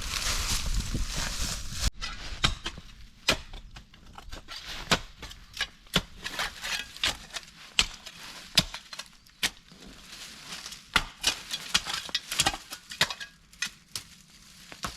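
A rustling hiss for about two seconds, then a long run of irregular sharp clicks, cracks and knocks, some of them loud, like wood being handled, knocked or snapped.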